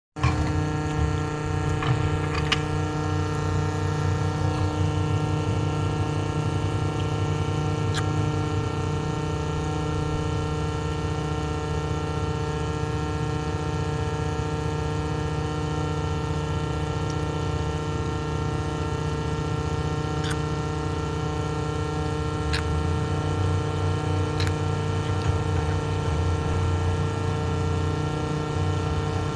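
Excavator engine running steadily at a constant speed, with a few short sharp clicks or knocks over it.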